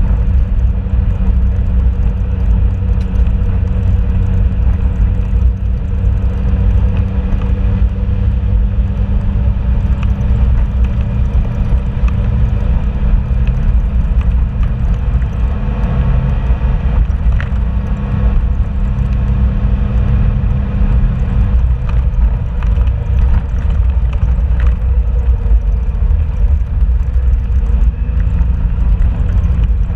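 A vehicle driving on a gravel road, heard from inside the cab: a steady low rumble of engine and tyres with a few faint clicks. The engine note shifts about two-thirds of the way through.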